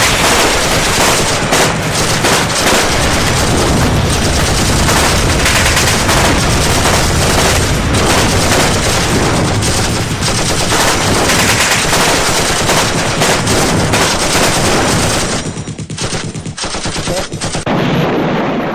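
Loud, dense, continuous rapid gunfire, like sustained machine-gun fire, that gets somewhat quieter and thinner about fifteen seconds in.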